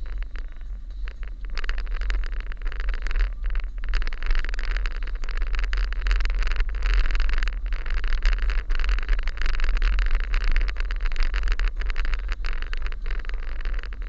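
Car driving slowly, recorded by a dashcam: a steady low rumble of engine and road noise, with a rougher hiss of tyre noise coming in about a second and a half in.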